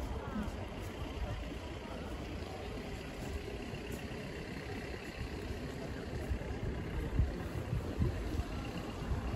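Steady low rumble of street ambience with a vehicle engine running.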